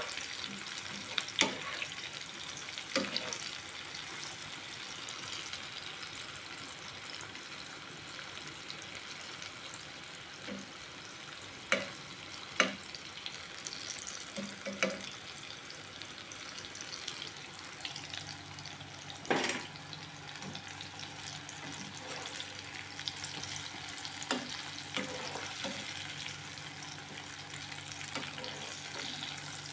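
Eggplant pieces sizzling steadily as they fry in hot oil in a ceramic wok, with sharp clicks of metal tongs and a wire strainer against the pan as the pieces are turned and lifted; the loudest click comes a little past halfway.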